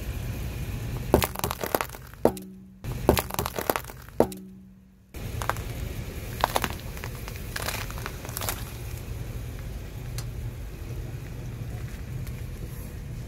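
Car tyre rolling over hard lollipops, several sharp cracks as the candy shatters. Then, over the car's low rumble, a few cracks and crunches as the tyre crushes green apples.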